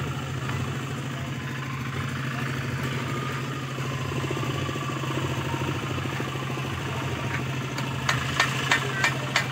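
A steady low engine-like drone, with a run of sharp taps or knocks starting near the end, about three a second.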